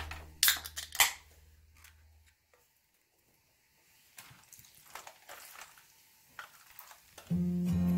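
Aluminium drinks can being opened: two sharp cracks half a second apart as the tab is pulled. Then faint trickles and drips as the liquid is poured over a raw turkey.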